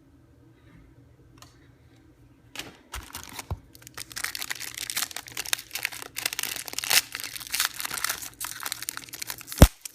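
Trading-card pack wrapper being crinkled and torn open: a dense run of crackling starting about two and a half seconds in, with a sharp tap near the end.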